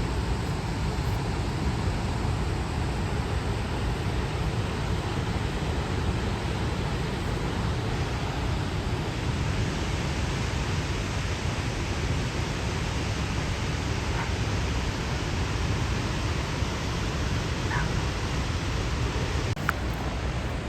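Steady, even rushing roar of Månafossen, a 92-metre freefall waterfall, with a small click near the end.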